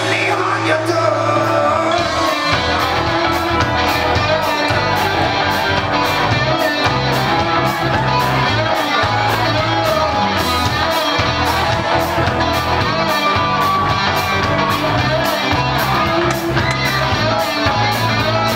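Live band playing a pop-rock song through the PA: electric guitars, bass and a sung vocal line over drums. The drum beat comes in about two seconds in and runs at about two strokes a second.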